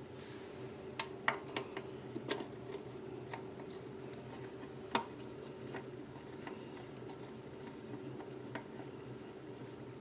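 Faint, scattered plastic clicks and taps from a toilet seat's plastic mounting bolts and wing nuts being turned tight by hand, about ten at irregular spacing, the loudest about a second in and near the middle, over a steady low hum.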